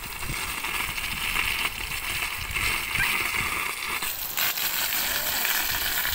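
Water rushing and splashing steadily from a badly leaking water pipe, growing brighter and louder about four seconds in.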